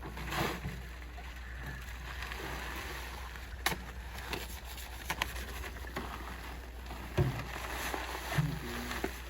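Wet concrete being mixed by hand, with sloshing and scraping and a few sharp knocks along the way.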